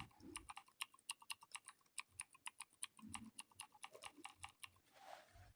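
Faint, quick typing: a steady run of sharp mechanical-keyboard key clicks, about five a second, played by keyboard-sound software for each press on a membrane keyboard. The clicks stop a little before the end.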